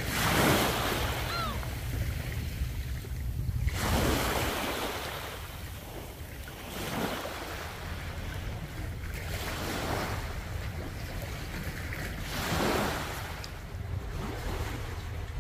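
Small waves washing onto a pebble shore in surges every few seconds, over a steady low rumble of wind on the microphone.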